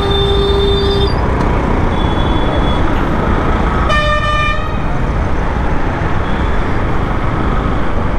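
Heavy road traffic with a steady motorcycle engine rumble, and vehicle horns honking over it: a short horn at the start and a louder, brassy horn blast about four seconds in.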